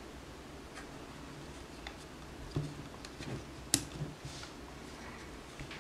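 Scattered light clicks and taps from handling a GoPro in an aluminum camera cage with a small LED light and microphone adapter mounted, about half a dozen, with one sharp click a little before four seconds in.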